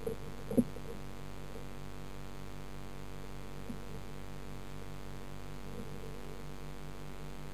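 Steady mechanical hum of a pond filter pump heard underwater, with a low, even pulsing beneath it. There is a single sharp knock about half a second in.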